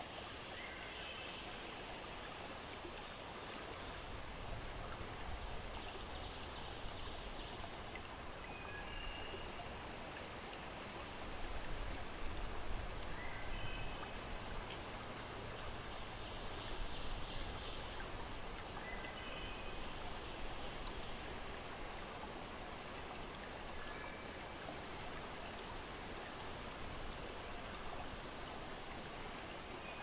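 Ambient nature sound of steadily running water, like a stream, with short high bird chirps now and then.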